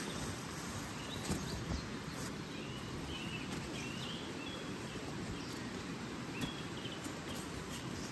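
Steady rush of a river, with small birds chirping now and then in short rising and falling notes, and a few faint knocks.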